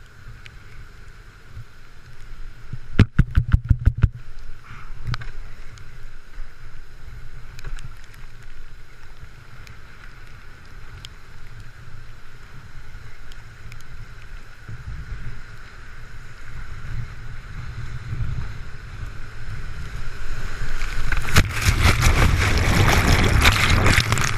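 River white water rushing past a kayak, heard as a steady low rumble on a helmet-mounted GoPro 3 in its waterproof housing, with a quick run of sharp clicks about three seconds in. From about 21 seconds the water noise swells into a loud wash of spray as the kayak runs the waterfall.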